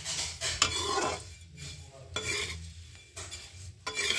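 A metal spatula scraping and turning flattened rice (chura/poha) over in a metal kadhai, in several strokes. The strokes are loudest in the first second and again near the end. The rice is being dry-roasted in a little oil until it turns crisp.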